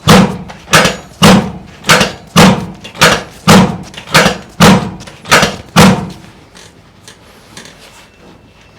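A series of heavy thumps, about a dozen at roughly two a second, evenly spaced, stopping about six seconds in.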